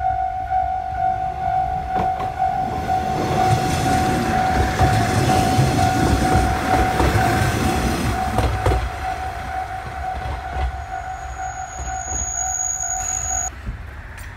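Level-crossing warning bell ringing steadily while a single diesel railcar rumbles past over the crossing, with a few knocks from the wheels over the rail joints. The train is loudest in the middle, then fades. The bell cuts off about a second before the end.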